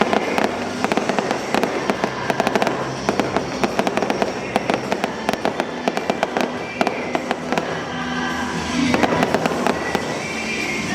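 Fireworks going off in rapid, dense volleys of crackling pops and bangs, thickest in the middle of the stretch, with music playing underneath.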